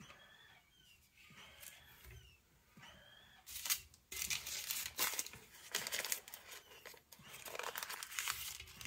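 Parchment paper squares crinkling and rustling as they are handled and shifted on a perforated metal pan, starting about three and a half seconds in and continuing in quick, irregular crackles.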